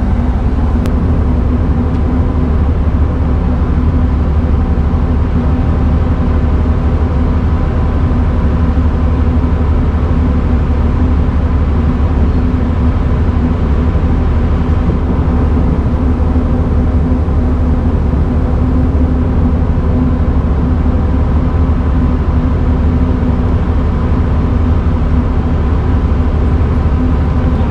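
Steady drone of a woodchip carrier under way, its engines and machinery making a loud low hum with several steady tones over it, unchanging throughout.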